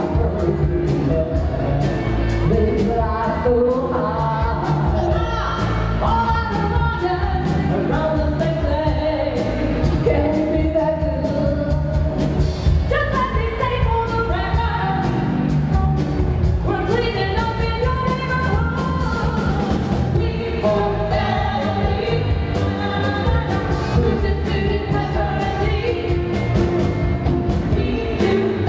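Live band playing a pop song with women singing lead into microphones, backed by electric bass, drums and keyboard, over a steady beat.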